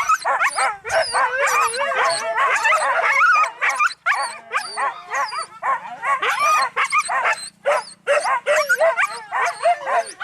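A pack of hunting dogs yelping, whining and baying together, many high-pitched cries overlapping with hardly a pause.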